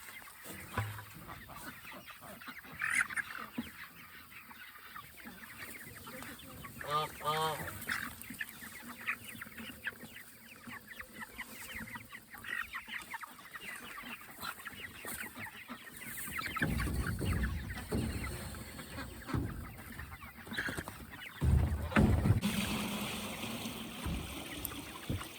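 Cornish cross meat chickens clucking and peeping. Louder rumbling noises come in past the middle, and a steady rushing noise near the end.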